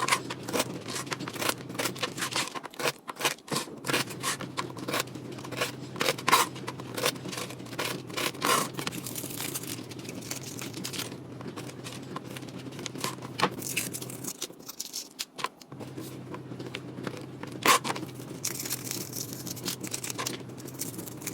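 Kitchen food-prep handling noises: utensils scraping and clicking and packaging tearing and rustling in irregular bursts, over a steady low hum.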